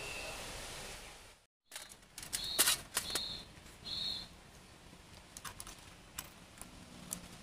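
Light clicks and taps of the parts of a Sougayilang Thunder LS40R overhead fishing reel being handled and fitted back together during reassembly, with three short high chirps about two and a half to four seconds in. Steady hiss before a sudden cut about one and a half seconds in.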